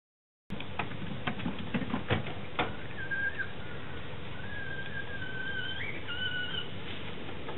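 Several sharp clicks and knocks, then a string of long, steady whistled notes that step up and down in pitch, over a steady background hiss.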